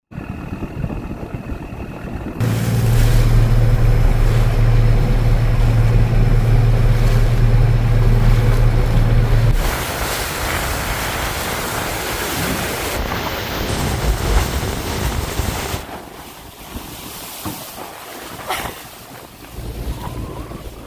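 A small riverboat's engine drones steadily, with wind buffeting the microphone and water rushing and splashing in rough waves. The sound changes abruptly a few times, and the engine drone drops out after the first third.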